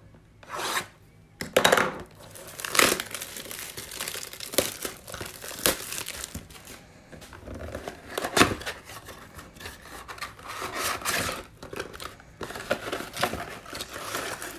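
Plastic shrink-wrap being slit and torn off a cardboard trading-card box: irregular crinkling and tearing with several sharp crackles, the loudest about eight seconds in. Near the end the cardboard box is pulled open.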